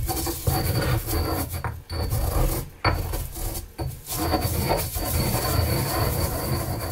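Stone pestle grinding garlic and salt in a stone mortar: a gritty rubbing and scraping, worked in strokes with brief breaks about once a second.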